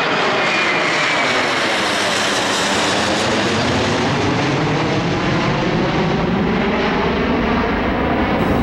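Twin-engine jet airliner passing low overhead: a loud, steady roar of its jet engines, with a slow sweeping, phasing quality in the tone as it goes over.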